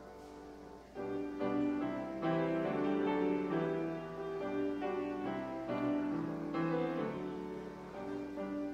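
Grand piano playing slow chords, with a note dying away before the playing picks up again about a second in.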